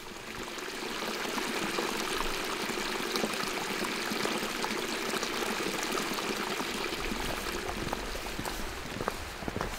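Running water, a steady rushing stream that swells in over the first second and eases a little near the end.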